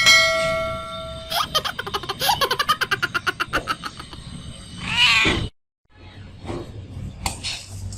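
Cat meowing mixed with added comic sound effects. A steady held tone lasts about a second, then comes a fast rattling run with a wavering pitch, and a single meow about five seconds in that cuts off abruptly.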